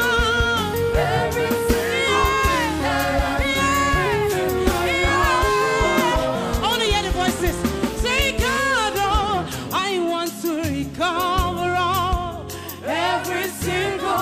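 Live gospel song: a woman's lead vocal with backing singers over electronic keyboard and a steady beat.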